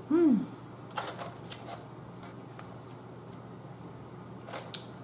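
A short hum from a person, falling in pitch, then scattered light clicks and crackles as fried takeout food is picked at in a foam clamshell box, about a second in and again near the end.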